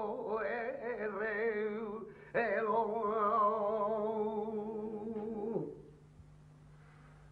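Male flamenco cantaor singing cante jondo, a wavering, ornamented vocal line. After a brief break about two seconds in, he holds a long quavering note that glides down and stops near six seconds, leaving only a faint steady hum.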